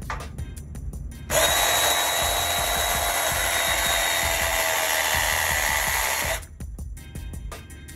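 Cordless DeWalt pipe press tool running a press cycle to crimp a copper elbow fitting onto copper pipe: a steady, loud motor whine that starts about a second in, lasts about five seconds, and cuts off sharply.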